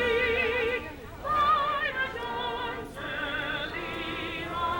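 The national anthem sung by a solo voice with a wide vibrato, in long held notes with short breaks about one and three seconds in.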